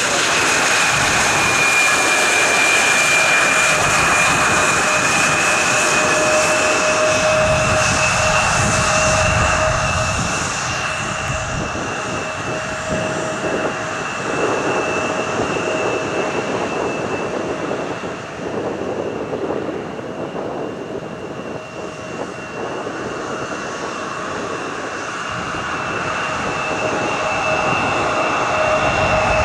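Embraer E170 regional jet's turbofan engines running with a steady high whine over a rushing roar; the rush eases about a third of the way through while the whine holds.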